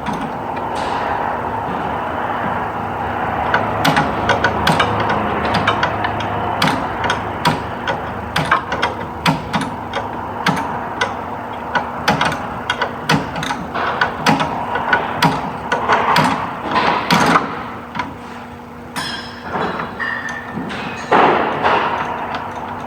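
Irregular clicks and knocks of hand tools working on metal parts, about one or two a second, over a steady hum.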